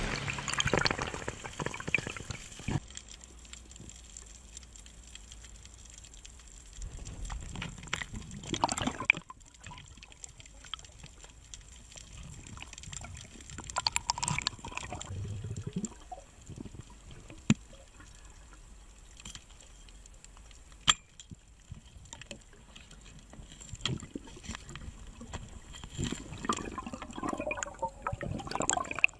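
Underwater sound of a diver handling an octopus, heard through the camera's housing: irregular water swishes with scattered sharp clicks and knocks. There are louder stretches about eight seconds in, around fourteen to sixteen seconds, and again near the end.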